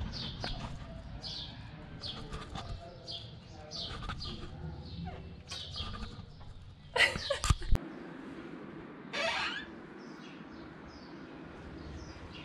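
Small birds chirping, short falling chirps about twice a second, over a low outdoor rumble. About seven seconds in there is a brief loud cluster of sharp noises, the loudest thing here, and a single sweeping call about nine seconds in.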